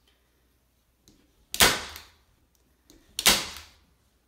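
Hand staple gun fired twice, driving staples through upholstery fabric into the wooden bench frame: each shot a faint click followed by a loud, sharp snap, about a second and a half apart.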